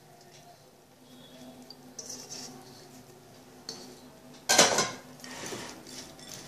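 A metal spoon stirring a crisp puffed-rice bhel puri mixture in a glass bowl, starting suddenly about two-thirds of the way in with a loud scrape and rattle, then continuing more softly. Before it there are only a few faint rustles.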